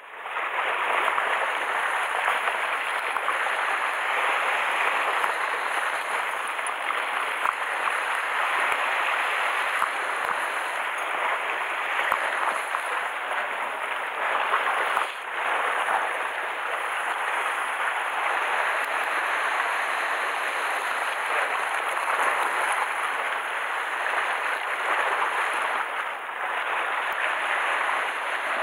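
Sea water washing and fizzing against the rocks of the shoreline: a steady rushing hiss with no clear breaks.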